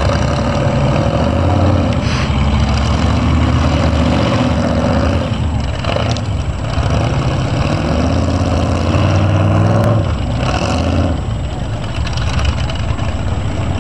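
Off-road 4x4 truck engines running and revving, the pitch rising and falling several times as the trucks work through mud and snow.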